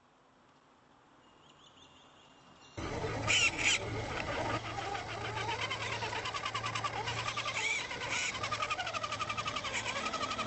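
Quiet for about three seconds, then a sudden start of a radio-controlled scale truck's electric motor and gearbox whining, the pitch rising and falling as the throttle changes.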